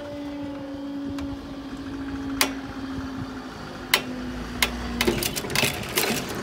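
Train running past, its steady engine tone slowly dropping in pitch and fading out about five seconds in, with a few sharp clicks and then a dense clatter of clicks and rattles near the end.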